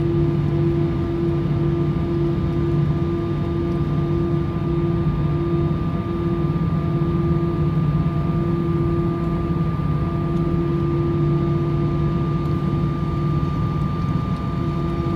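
Airbus A350-900 cabin during taxi: the Rolls-Royce Trent XWB engines at low thrust, heard through the fuselage as a steady low rumble with a few held humming tones.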